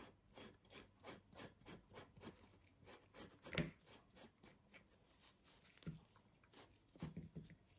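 Faint small ticks and rubbing, about three a second, with a couple of slightly louder knocks, as a slippery jack mushroom is peeled and trimmed by hand.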